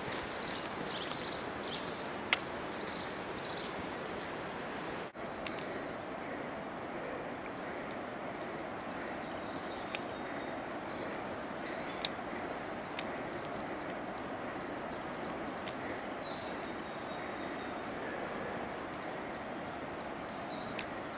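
Steady rushing background noise with a few faint, high bird chirps now and then, and a couple of sharp clicks.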